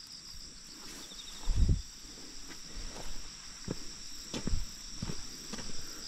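Insects chirring steadily in two high bands. About a second and a half in there is a low thump, the loudest sound, and then footsteps follow at a steady walking pace, roughly one every two-thirds of a second.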